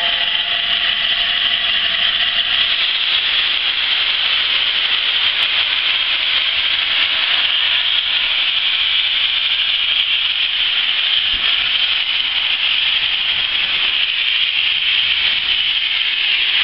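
LNER A4 class steam locomotive 60019 Bittern releasing steam in a loud, steady hiss, with no exhaust beats.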